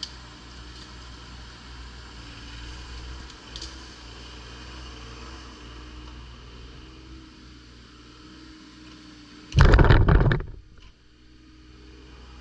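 Bobcat E35 mini excavator's diesel engine running steadily while it works its arm and bucket, with a loud crash of wood and branches, under a second long, about ten seconds in as the uprooted pine trunk is dropped.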